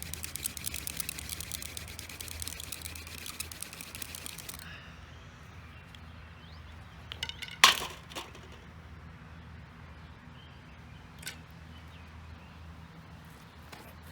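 Tall ironweed hand-drill spindle spun fast in a white pine fireboard, a rapid scratchy friction as the drill works up an ember; it stops suddenly about four and a half seconds in. After it a few sharp clicks or knocks follow, the loudest just past halfway.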